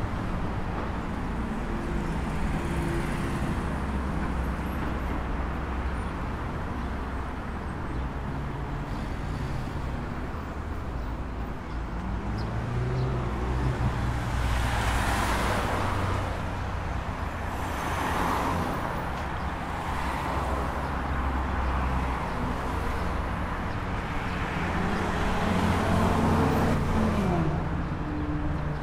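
Road traffic on a busy city avenue: a steady rumble of engines, with cars passing close by about halfway through and again near the end, one engine's pitch rising and falling as it goes.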